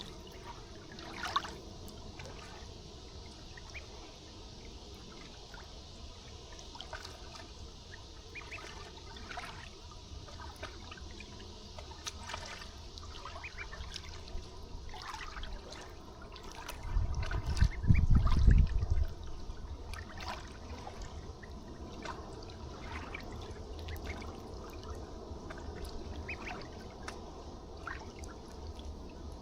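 River water trickling and lapping, with scattered brief ticks. About seventeen seconds in, a loud low rumble lasts about two seconds.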